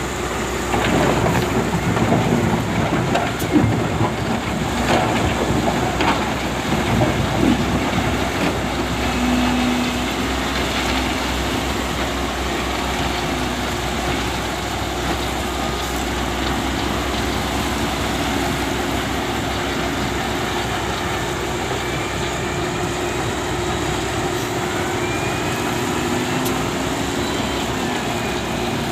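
SDLG excavator's diesel engine running steadily under load, with a hydraulic whine that shifts in pitch. Heavy knocks and a rumble come over the first several seconds, then the engine settles into an even run.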